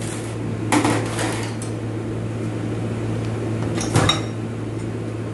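Metal automatic-transmission parts clinking and clattering as they are handled, in two bursts: about a second in, and again near four seconds in with a short metallic ring. A steady low hum runs underneath.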